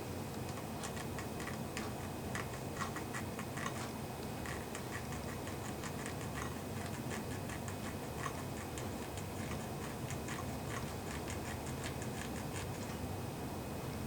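Small, sharp plastic clicks and ticks, several a second and irregularly spaced, from a quartz clock movement being handled and reassembled.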